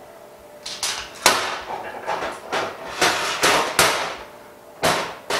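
Metal phone-glass alignment mold parts knocking and clattering against each other and a steel workbench as the mold is taken apart and set down: a run of sharp clacks, the loudest just after a second in, with a couple more near the end.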